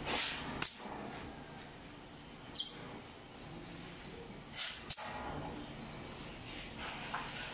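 Pneumatic clip gun firing clips into galvanized cage wire: a short burst of air with a sharp click, twice, near the start and again about four and a half seconds in.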